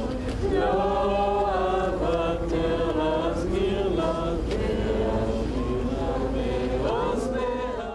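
A crowd of many voices singing a slow melody together, with long held notes gliding from one to the next.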